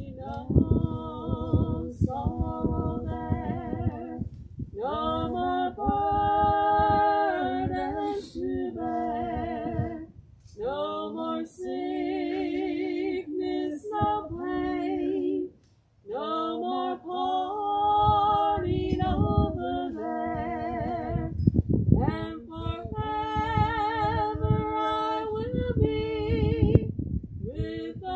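A woman singing solo without accompaniment, long held notes with vibrato, in phrases with short breaths between them, over a low rumble.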